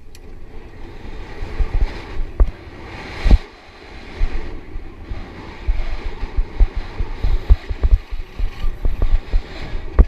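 Wind rushing over the microphone of a BMX bike's POV camera as the bike races down the dirt start hill and over the track, with frequent low thumps and knocks as the bike jolts over the bumps. The hardest knock comes about three seconds in.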